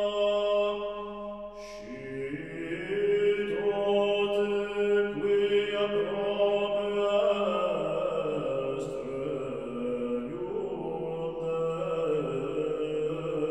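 Background music of slow sung chant: long held vocal notes over a steady low held note, the melody stepping to a new pitch every second or two.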